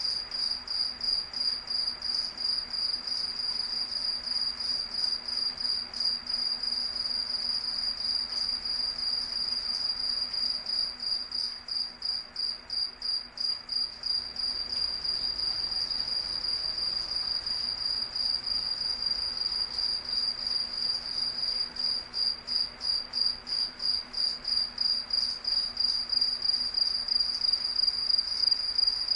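Cricket chirping continuously: a single high-pitched trill pulsing in an even rhythm of a few chirps a second.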